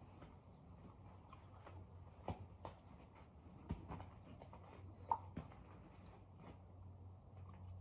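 A horse's hooves on a gravel arena: faint, irregular clicks and taps as it walks and halts, over a low steady hum.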